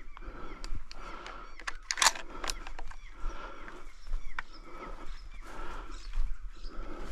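Fallow buck groaning: a run of short, rough croaks about once a second, with a few sharp clicks and one louder crack among them.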